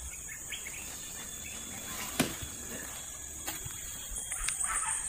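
Insects chirring steadily at a high pitch in the scrub. A single sharp crack about two seconds in, then some rustling in the undergrowth near the end.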